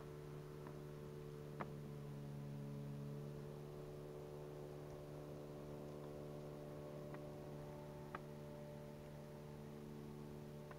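A steady low hum with several overtones, swelling slightly a couple of seconds in, with a few faint ticks.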